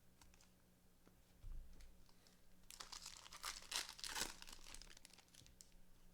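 Plastic wrapper of a trading-card pack being torn open and crinkled, a dense crackling that lasts about a second and a half in the middle, with a few faint handling clicks before it.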